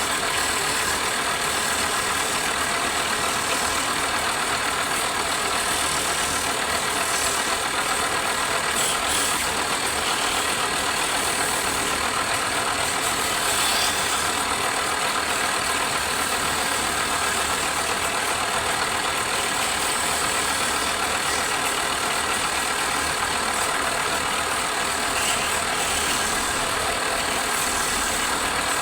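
Wood lathe running steadily, its motor whining at a constant speed with a hissing edge.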